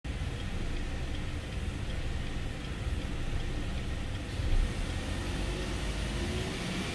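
2014 Cadillac CTS 2.0-litre turbocharged four-cylinder engine running at idle, heard from inside the cabin, with a brief louder moment about halfway through. Engine speed starts to rise near the end.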